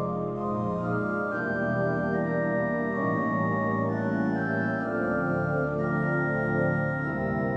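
Organ playing a slow postlude of sustained, full chords that change about every second, with high melody notes held over them.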